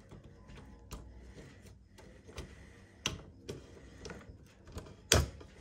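Scattered plastic clicks and knocks from the blue printhead latch of an HP Ink Tank 319 printer being handled and pressed down onto the print carriage, with the loudest sharp snap about five seconds in.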